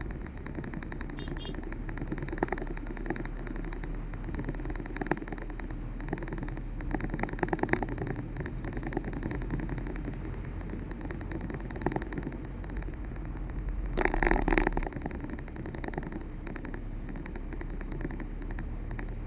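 Steady road and engine noise of a moving vehicle, with scattered clicks and rattles and a louder rush of noise about fourteen seconds in.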